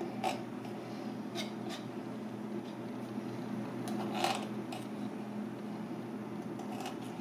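Knife blade clicking and scraping against a turban shell and cutting board as the meat is cut out of the shell: a few short sharp clicks, the loudest about four seconds in, over a steady background hum.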